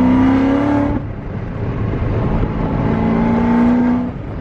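Supercharged V8 of a C7 Corvette Z06 with new Kooks headers, loud under acceleration as heard from inside the cabin. The engine note climbs, breaks off about a second in, then climbs again and breaks off near the end.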